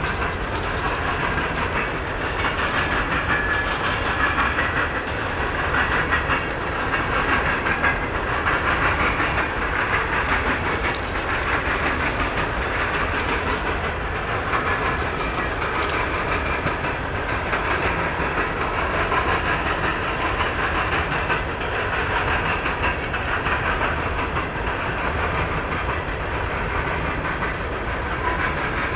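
Empty coal hopper cars rolling past close by: a steady rumble and hiss of steel wheels on rail, with irregular sharp metallic clicks and squeaks from the wheels and couplers. A second freight train of autorack cars passes behind.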